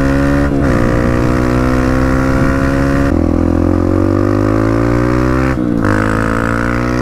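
Dirt bike engine pulling under acceleration while riding, its pitch climbing steadily, with short drops about half a second in, near three seconds and near six seconds, as the rider shifts up. Wind rushes over the helmet microphone.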